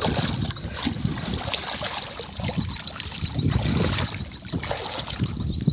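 Shallow paddy-field water splashing and sloshing irregularly as legs wade through it and a plastic box trap is worked and lifted clear of the water.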